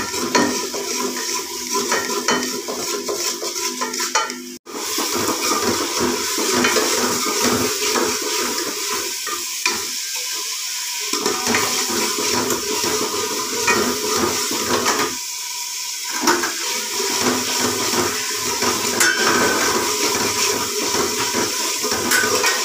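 A metal spoon scraping and clinking against a metal pot as onion, garlic and spices fry in oil, under a steady sizzle. The sound cuts out for an instant at about four and a half seconds in.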